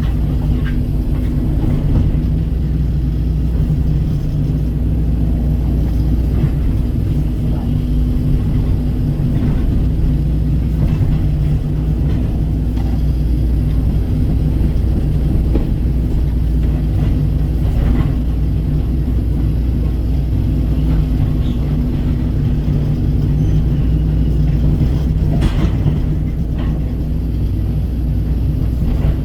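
Kobelco SK135 excavator's diesel engine running steadily at working speed, with a few faint knocks.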